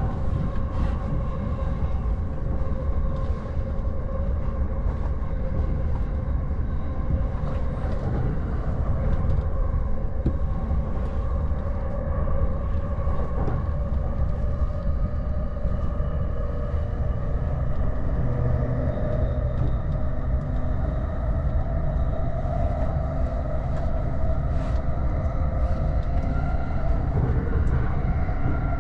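Interior running noise of a JR East E231 series commuter train, heard from the upper deck of a bilevel Green car: a steady low rumble of wheels on track with a hum of several steady tones over it.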